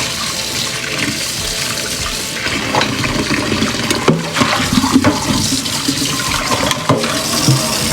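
Kitchen tap running steadily into a sink, water splashing while dried tangerine peel is rinsed. A few light knocks and clatters are heard from about a third of the way in.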